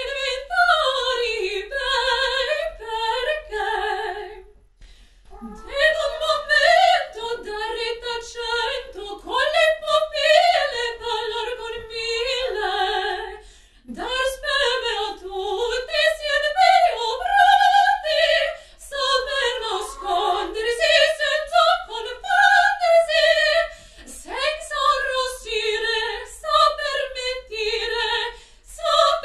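A woman singing in operatic style, unaccompanied, in short swooping phrases, with brief breaks about five, fourteen and twenty-four seconds in. A faint steady low hum runs underneath.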